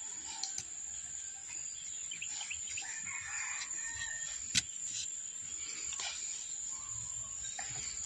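Sharp clicks and scrapes of a serrated blade working into tree bark to dig out an embedded .25 airgun pellet, the loudest click about halfway through. A bird calls in the background, and a steady high-pitched tone runs throughout.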